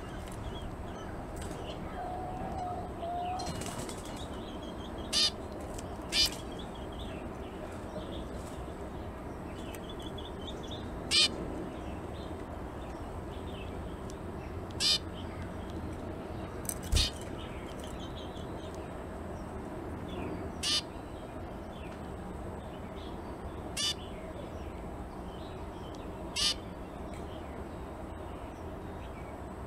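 Zebra finch calling: about eight short, sharp calls spaced a few seconds apart, with faint softer twittering in between.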